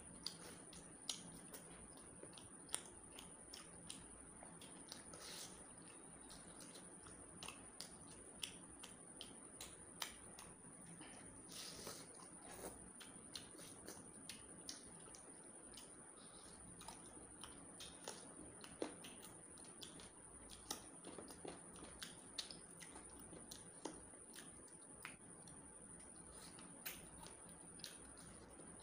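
Quiet eating by hand: scattered small clicks and wet smacks of chewing and of fingers squishing curried rice, at irregular intervals. A faint, steady high-pitched whine runs underneath.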